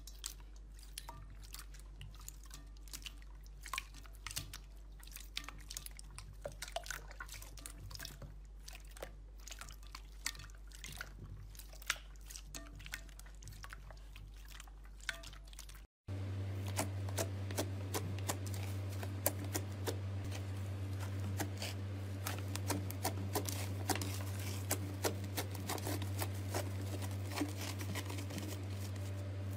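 Hands pressing and stretching clear slime, making many small, irregular sticky clicks and pops over a steady low hum. About sixteen seconds in it cuts to pale blue slime being squeezed, with louder, denser clicking.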